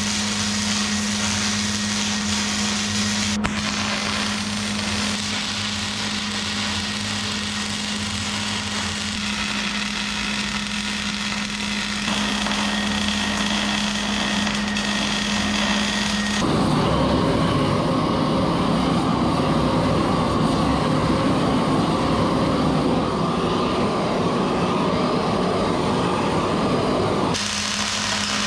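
Wire-feed welding arc crackling steadily as a bead is laid on a steel axle truss, with a steady low hum under it. A little past halfway the crackle turns louder and deeper, and it changes back near the end.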